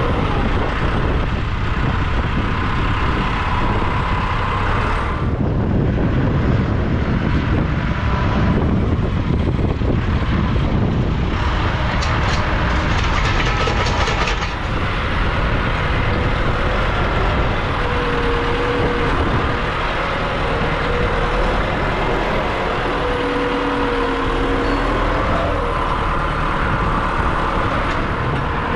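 Diesel engine of heavy farm machinery running steadily under load while silage is being worked, with a faint whine that shifts in pitch. Wind buffets the microphone.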